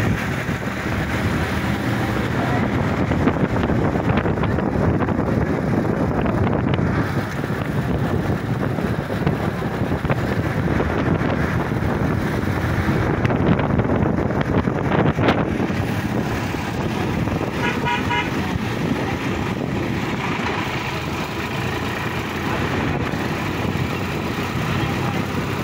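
Sonalika DI-50 RX tractor's diesel engine running steadily while driving, heard from on board. About two-thirds of the way through, a horn sounds a short run of quick beeps.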